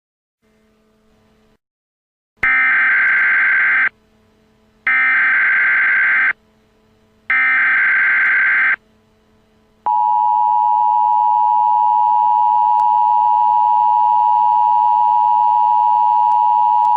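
Emergency Alert System data header: three bursts of rapid digital data tones, each about a second and a half long with a second's gap between them. About ten seconds in comes the EAS attention signal, a loud, steady two-tone alert.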